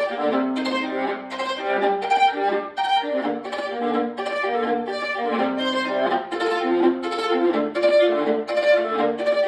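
Violin playing a melody of quick, short notes.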